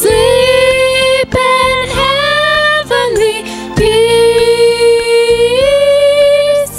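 A woman singing into a microphone over a low, steady accompaniment, holding long notes. The last note lasts about three seconds and steps up in pitch partway through.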